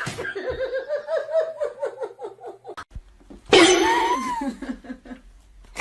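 A person laughing in a quick run of short repeated bursts for nearly three seconds, then a louder, higher vocal outburst with a rising-and-falling pitch about three and a half seconds in.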